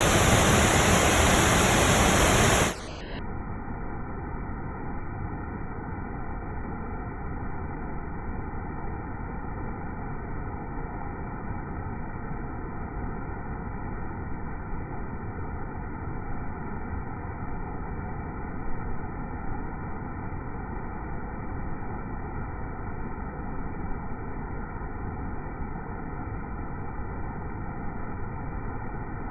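Waterfall rushing as a steady wash of noise. About three seconds in, the sound drops and turns dull and lower, the muffled, slowed-down rush of the slow-motion playback, and stays that way.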